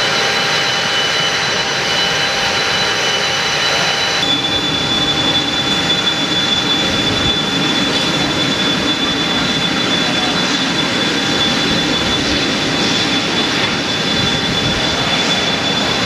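Learjet 31A's Honeywell TFE731 turbofan engines running at idle on the ground: a loud, steady jet noise with a high-pitched whine. About four seconds in the whine shifts to a single slightly lower tone and a low rumble grows.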